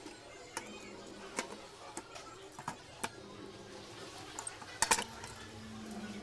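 Light clinks and knocks of small hard objects being handled, with a louder double clink about five seconds in. A steady low hum starts about halfway through.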